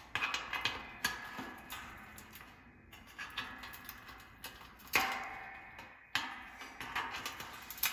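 Scattered metallic clicks and clinks of a wrench twisting and working loose the heating element hardware inside a metal space heater, with a louder clank about five seconds in.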